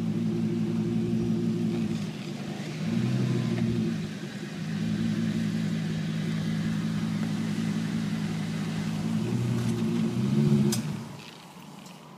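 Ford F-250 pickup's engine idling with a steady low hum that grows louder twice and cuts off near the end.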